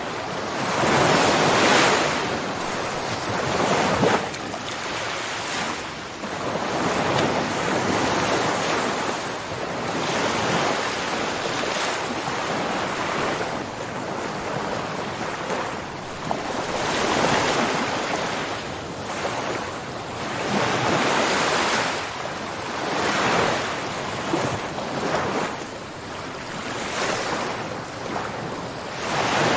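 Ocean waves breaking and washing on a shore, one after another: a hiss of surf that swells and falls back every few seconds.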